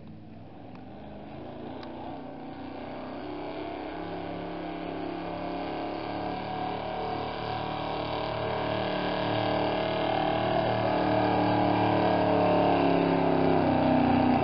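Engine of a pulling vehicle running hard under full load as it drags a weight-transfer sled down the track, growing steadily louder as it comes closer, its pitch sagging a little near the end as the run bogs down.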